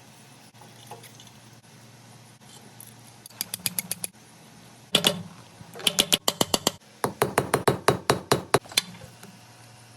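Hammer striking metal on an anvil in quick runs of light, ringing blows, about six or seven a second, with one heavier single blow midway.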